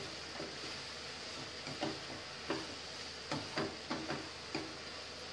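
A plastic spatula stirring chopped okra in a nonstick frying pan, making irregular light taps and scrapes against the pan, more of them in the second half, over a steady faint hiss.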